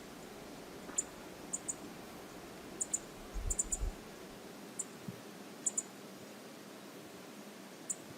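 Steady rush of the river in the background, with scattered short sharp high clicks, some single and some in quick pairs or threes, and a brief low rumble about halfway through.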